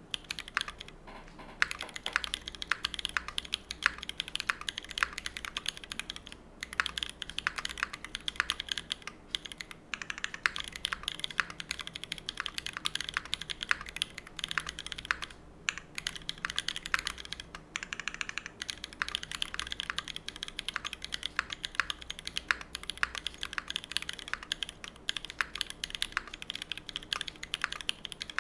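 Steady typing on a Monokei Kei R2 mechanical keyboard with stock Holy Panda tactile switches, a brass plate and brass bottom in an O-ring mount, and GMK keycaps: fast key clicks and clacks, with a few brief pauses.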